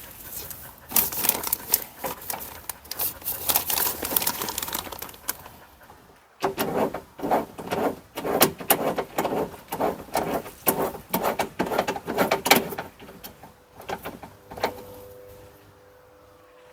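Ratchet wrench clicking rapidly in two long runs, with a short pause between them, as the window regulator's 12 mm bolts are driven in.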